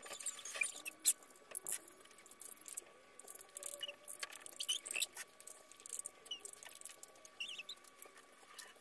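Hand scissors snipping through a child's hair: a string of quiet, irregular crisp snips, the sharpest one about a second in.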